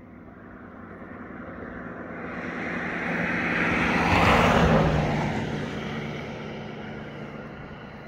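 A road vehicle driving past: tyre and engine noise swells as it approaches, is loudest about four seconds in, then fades as it moves away.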